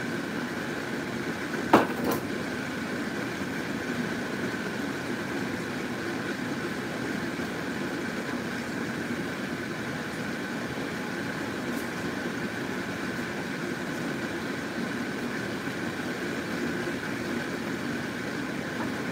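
A steady, even hum like a small motor or fan running, with a sharp click about two seconds in and a softer one just after.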